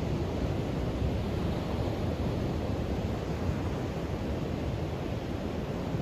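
Pacific Ocean surf breaking and washing up on a sandy beach: a steady, unbroken rush with most of its weight in a deep low rumble.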